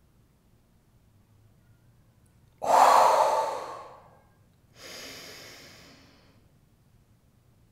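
A woman breathing deeply during meditation: a sudden loud breath about two and a half seconds in, lasting over a second and fading, then a softer, slower breath a second later.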